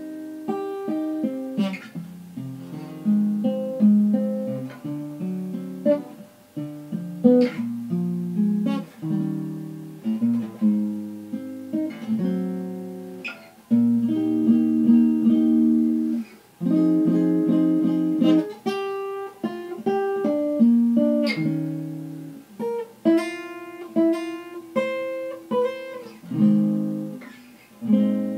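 Guitar playing an instrumental passage of picked notes and chords, each note ringing out and fading.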